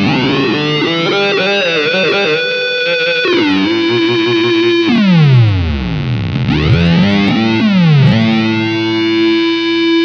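Electric guitar played through an EarthQuaker Devices Data Corrupter PLL synth pedal, giving a buzzy, distorted synth tone with a fifth voice set two octaves down. Held notes alternate with steep pitch swoops that dive down and climb back up in the second half, the PLL's gliding tail.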